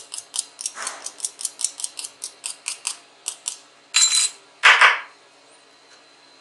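Soldering iron tip being cleaned: a quick run of sharp metallic clicks, about six a second, then two louder, longer scraping sounds about four seconds in.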